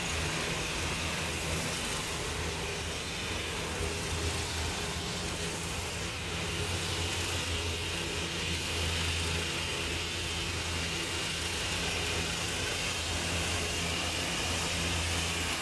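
Riding lawn mower engine running steadily in the distance, a low hum with a steady high-pitched hiss above it.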